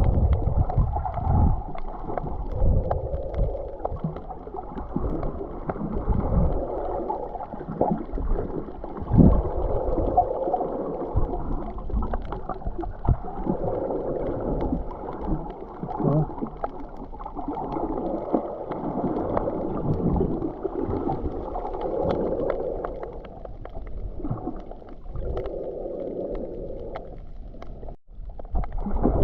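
Muffled, gurgling water sounds over a low rumble, swelling every few seconds, as heard through an underwater or waterproof-housed camera.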